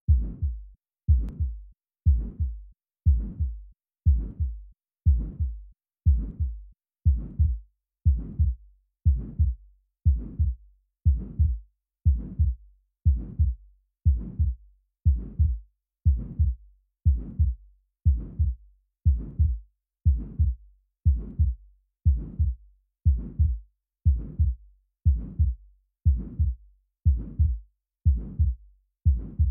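Heart sounds of aortic stenosis: a regular heartbeat about once a second. Each beat is a first heart sound, then a mid-systolic ejection murmur, then the second heart sound.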